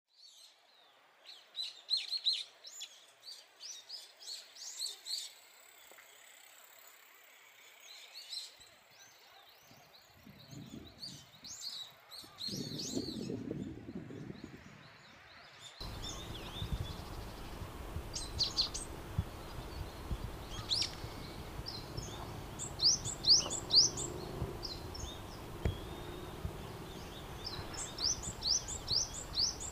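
Brown-eared bulbuls calling loudly, repeated shrill calls in quick runs of sharp notes. About halfway through, a steady background noise comes in under the calls, after a low rumble.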